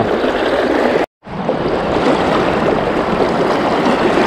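Steady rushing of river current around a wading angler, broken by a brief total dropout about a second in.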